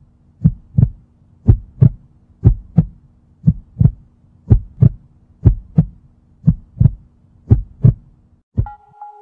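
Heartbeat sound effect: a steady lub-dub of paired low thumps about once a second, over a faint low hum. Near the end the beats stop and a held musical tone begins.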